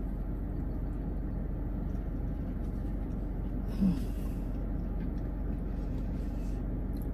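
Steady low rumble of a car's interior while stationary, with a brief voiced "mm" just before four seconds in.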